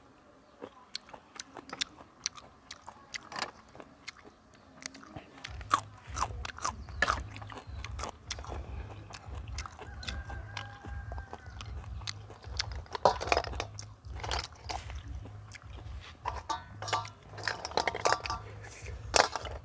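People eating boiled snails: chewing and crunching, with many sharp clicks of spoons and snail shells against the bowls. A low rumble comes in about five seconds in.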